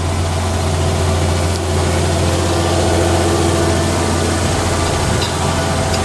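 John Deere tractor's diesel engine running steadily under load while it pulls a mounted reversible plough through stubble, with a strong low hum.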